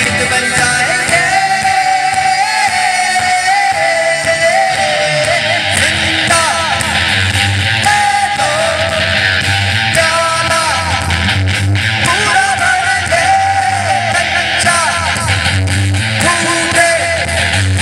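Rock band playing live: electric guitars over bass and drums, with a bending lead melody on top and the low end growing heavier about a third of the way in.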